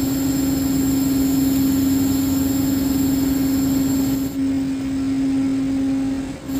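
A tanker's mooring winch running under power, a steady mechanical hum with one strong pitch over a rumble. The hum dips briefly about four seconds in and again near the end.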